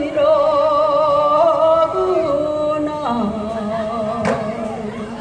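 Korean Gyeonggi folk singing (gyeonggi minyo): long held notes with a strong wavering vibrato, stepping down to a lower held note about three seconds in, with one sharp knock about four seconds in.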